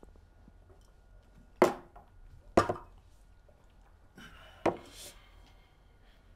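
Three heavy knocks of glasses set down hard on a wooden coffee table after shots, spaced about a second apart.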